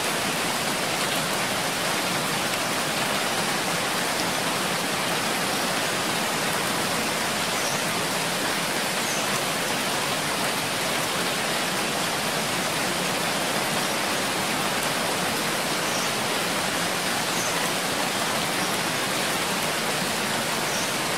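Steady, even rain, a dense unbroken hiss of falling rain without individual drops standing out.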